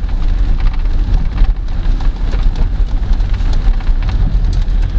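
Steady low rumble of a car being driven, heard from inside the cabin, with a fainter hiss over it from tyres on a wet road or rain.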